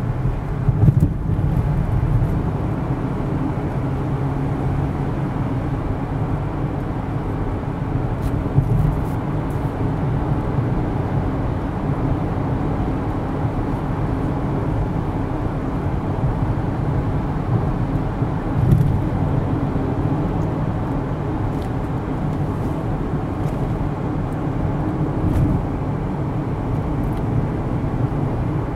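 A car being driven, heard from inside the cabin: steady low engine and tyre noise, with a few brief louder bumps.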